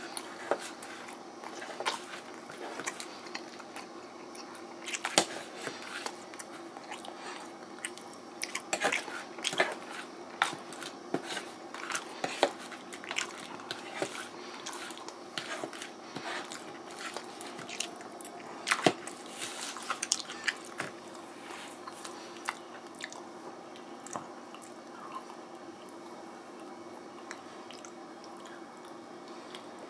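A person eating microwave noodles with beef close to the microphone: chewing, with frequent sharp clicks and taps that thin out about two-thirds of the way through, over a steady low background hum.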